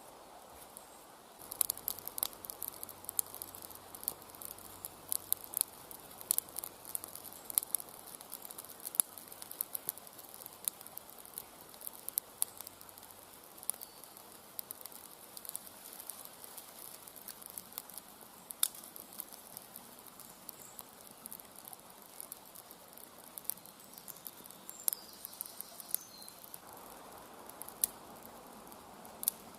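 Small stick fire crackling in a homemade tin-can rocket stove: irregular sharp pops and snaps over a faint hiss, starting about a second and a half in and thinning out in the second half.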